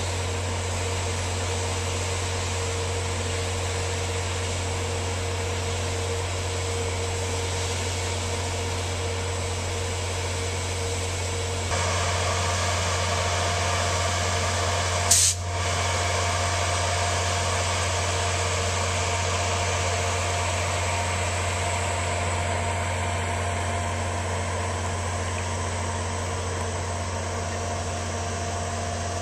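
Diesel locomotive of a VIA Rail F40PH idling at a standstill: a steady, low engine drone with a hiss over it. The drone gets a little louder about twelve seconds in, and there is one sharp click about halfway through.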